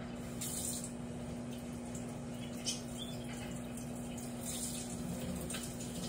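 Water running from a tap and splashing, with a steady low electrical hum underneath.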